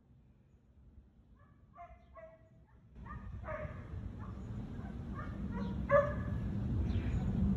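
Husky barking and yipping in short pitched calls: a couple of quieter yips about two seconds in, then a run of louder whining barks, the loudest about six seconds in. Under the calls, a low rumble comes up about three seconds in.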